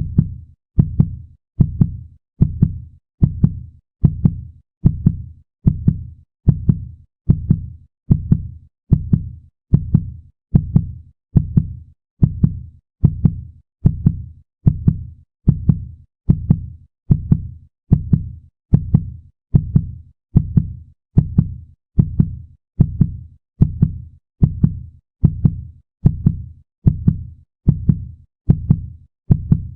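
A fast human heartbeat, an even lub-dub of paired low thuds at about three beats every two seconds.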